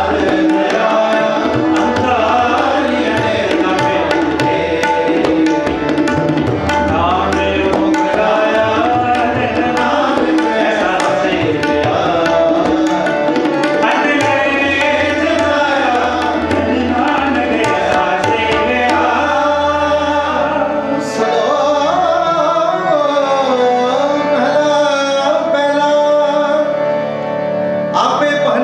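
Sikh kirtan: tabla playing dense strokes under harmonium and sung melody. The tabla's deep bass strokes drop out about two-thirds of the way through.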